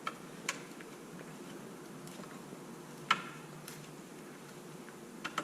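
A few scattered light clicks and taps of small tools and parts being handled during disassembly of an RC truck's rear end. The sharpest click comes about three seconds in, and two more follow close together near the end.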